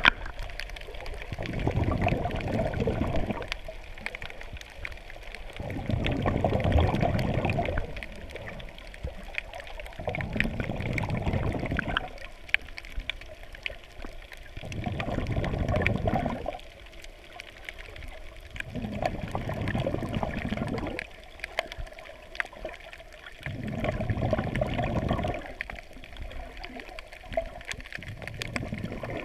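Underwater sound heard through a waterproof GoPro housing held just below the sea surface: water rushes and gurgles in surges about every four seconds, each lasting a second or two. Faint ticking crackles run underneath throughout.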